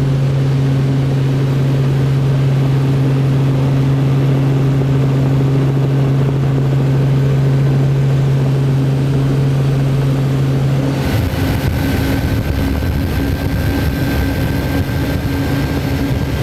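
Turbine engines of an offshore race boat running at speed: a steady low drone that turns rougher about eleven seconds in, with a thin high whine coming up.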